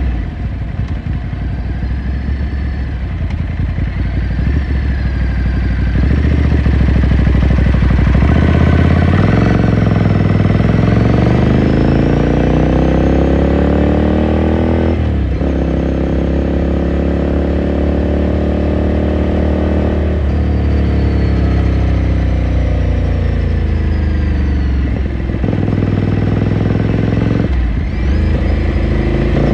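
Ducati Scrambler Sixty2's air-cooled L-twin engine pulling under acceleration during riding. After a lower, uneven stretch, the engine note rises and then drops at each upshift, four times in the second half.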